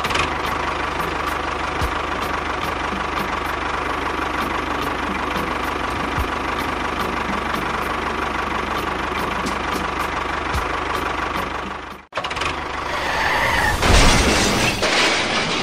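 Engine running steadily, like a tractor's diesel, for about twelve seconds. It cuts out briefly, and a louder, noisier engine sound follows and swells near the end.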